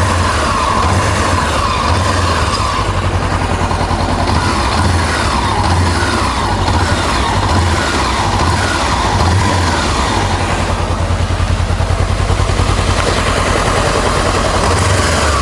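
Honda CBR400R's parallel-twin engine running, its pitch sliding down and rising again several times as the revs change.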